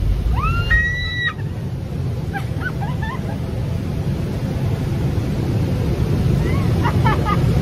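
Steady engine and wind noise of a small plane in flight, heard inside the cabin. About a second in, a short high squeal rises and holds briefly.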